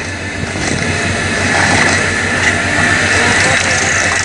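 Hydraulic excavator running steadily under load as its grab lifts and crushes a wrecked boat hull, with scattered cracks of the hull breaking.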